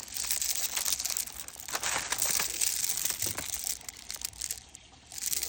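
Plastic bead packaging crinkling and rustling as it is handled, with small clicks throughout, easing off a little near the end.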